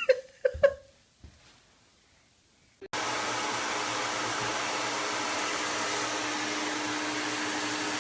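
A small motor-driven appliance starts running about three seconds in: a steady blowing noise with a constant hum. A short voice sound comes just before it, followed by a pause.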